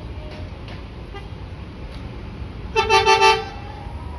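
Bus's basuri musical air horn sounding a short run of quick blasts, two pitches together, about three seconds in, over the low rumble of bus engines.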